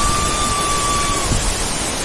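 Waterfall's steady roar of falling water, an even rushing noise. A thin steady whistling tone sounds over it for the first second or so and then stops.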